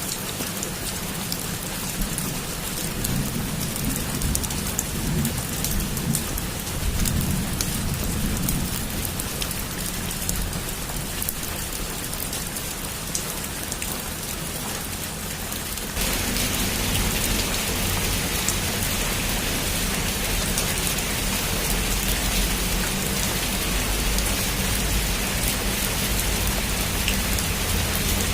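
Heavy rain falling steadily on a rooftop, a dense hiss with scattered sharp drop ticks and a low rumble underneath. About halfway through, the rain abruptly becomes louder and brighter.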